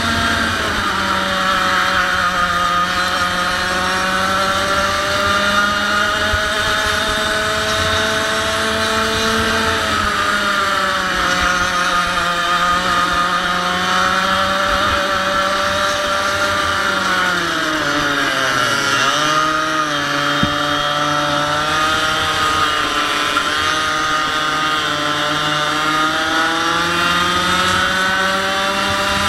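A 100cc two-stroke kart engine running at high revs, its pitch rising and falling as the kart works through corners. About two thirds of the way in, the revs drop steeply for a slow corner, then climb back up.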